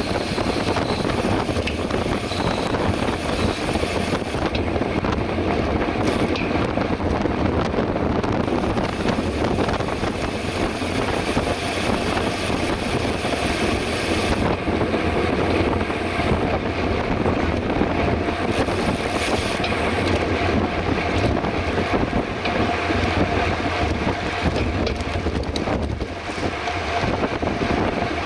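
Steady wind rushing over the microphone, with road noise from a mountain bike riding on the road.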